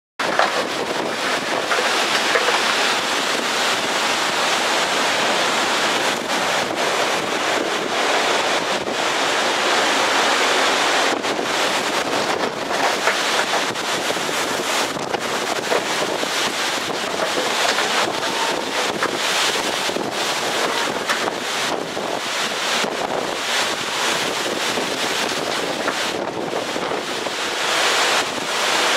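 Strong typhoon wind blowing in gusts, a loud, steady rushing noise that swells and eases slightly.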